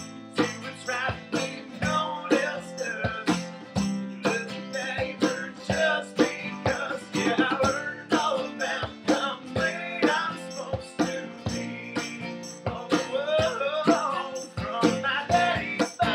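Acoustic country band playing: two acoustic guitars strummed, a djembe beaten by hand on a steady beat, and a man singing lead.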